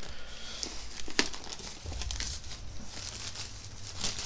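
Packaging crinkling and rustling as it is handled and cut open with a knife, with a sharp click about a second in.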